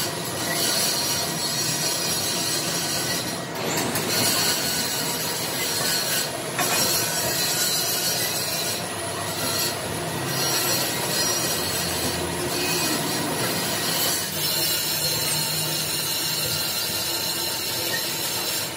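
Workshop machinery running with a steady, high metallic squeal, and a few sharp metal knocks as a large steel spur gear is set on its arbor on the gear-cutting machine.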